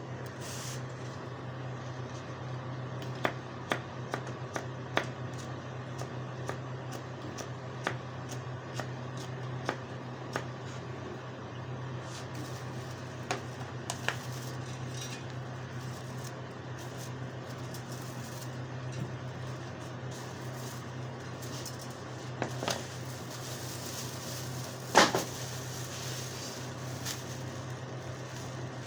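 Scattered metallic clinks and taps of small parts and tools being handled, the loudest about 25 seconds in, over a steady low hum.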